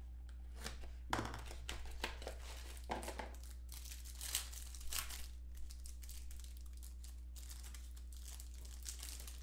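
Foil wrapper of a football trading card pack crinkling and tearing as hands rip it open and handle it, in irregular rustles.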